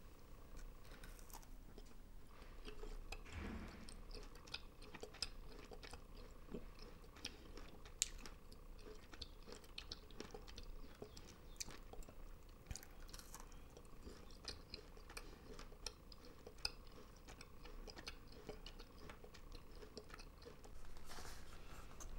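Someone chewing a piece of dried, sugar-coated wild pear (dolbae jeonggwa), with many small, irregular crunches and clicks.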